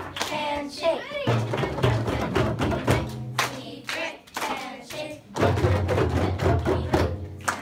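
A class of children chanting a rhyme together while clapping hands with partners and striking hand drums (frame drums and a djembe) in rhythm.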